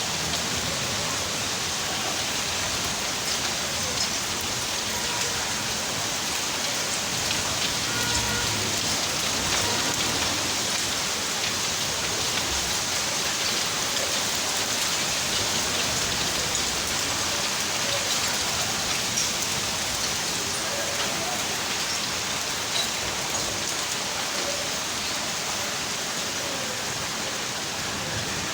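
Steady rain falling and pattering on surfaces, an even hiss that holds at one level throughout.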